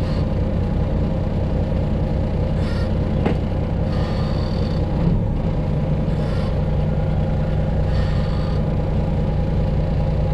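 Freightliner Classic XL semi truck's diesel engine running steadily at low speed, its pitch shifting slightly about five seconds in. A few brief higher-pitched sounds come over it, four times.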